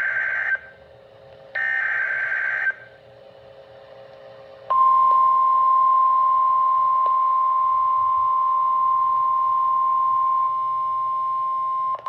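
Emergency Alert System signal: one SAME data-header burst ends and another full burst plays about two seconds in. After a short gap a steady single-pitch attention tone near 1 kHz starts about five seconds in and holds, dipping in level briefly near the end.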